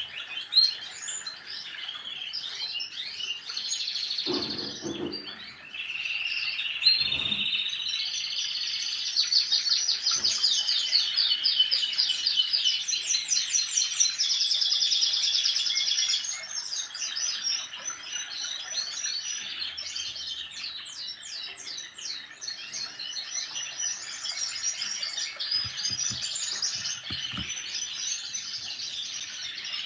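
Birds chirping and trilling continuously, with overlapping calls and fast trills that are densest in the middle stretch. A couple of low, dull thuds come about four and seven seconds in.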